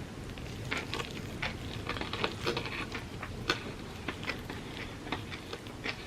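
Close-miked chewing of Dubai chocolate crepes: a run of small, irregular wet mouth clicks and soft crunches.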